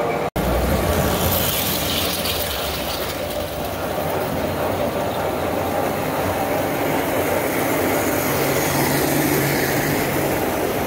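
Standard-gauge toy steam locomotive and its passenger cars running on three-rail track, making a steady mechanical running noise as the train comes closer and passes near the end. The sound cuts out for an instant just after the start.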